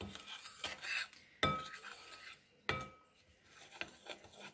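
Metal spoon stirring flour into a runny sour-cream batter in a glass mixing bowl: soft scraping, then two ringing clinks of spoon against glass about a second and a quarter apart.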